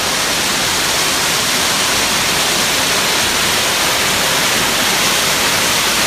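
Steady rushing of a mountain waterfall cascading down a rock face, an even, unbroken roar of falling water.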